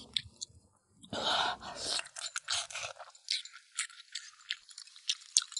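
Someone eating stewed lamb ribs and radish: a brief rustle about a second in, then a run of short chewing clicks.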